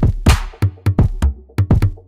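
Electronic background music with a fast drum-machine beat over a steady bass, with a splashy crash shortly after the start.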